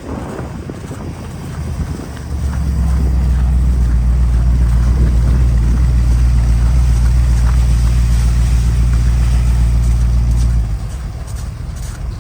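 Mercedes C 111-II engine running at steady revs: a low, even drone that comes in about two seconds in and cuts off suddenly near the end.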